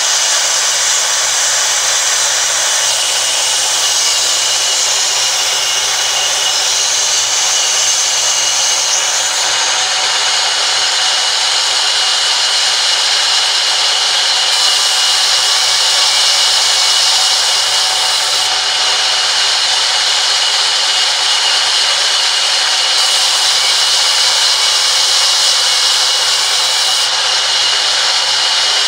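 Large vertical band saw running and ripping a timber plank fed along its table, a steady, high-pitched whine and hiss from the blade cutting through the wood.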